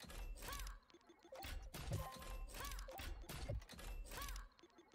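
Money Train 4 slot game sound effects during a bonus respin: a string of short whooshes and clicks as symbols land on the reels, about four of them carrying a brief electronic tone that rises and falls.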